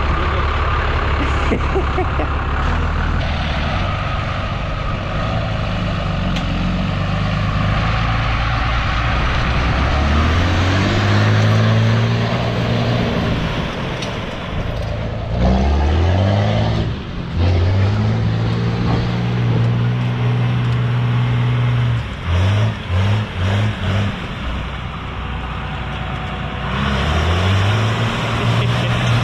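Turbo-diesel pickup engine revving hard and easing off again and again as it works under load in two-wheel drive, with a quick run of four short throttle blips about two-thirds of the way through.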